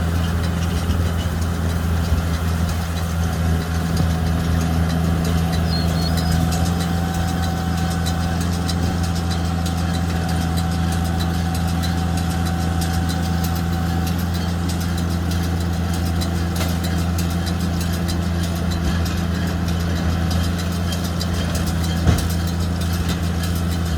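JCB Fastrac tractor engine running at a steady speed while it drives a McHale Fusion 2 baler-wrapper baling rice straw. A single sharp click comes about two seconds before the end.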